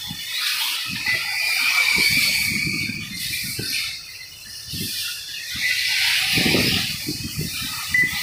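Electric 1/8-scale RC buggies racing: their brushless motors whine at a high pitch as the cars pass, over a hiss, with irregular low thumps.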